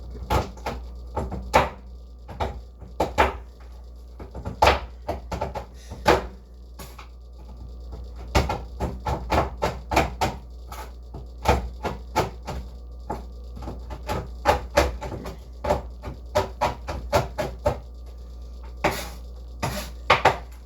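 A knife chopping chocolate on a cutting board: irregular sharp knocks, one to three a second, over a steady low hum.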